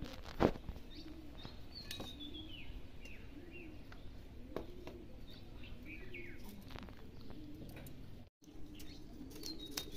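Small birds chirping: repeated short calls that fall in pitch. A sharp knock about half a second in is the loudest sound, with a few lighter taps after it. The sound drops out for a moment near the end.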